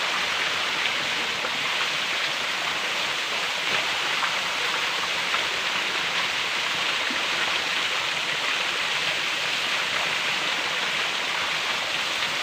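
Shallow, rocky creek water running steadily over stones, an even rushing hiss.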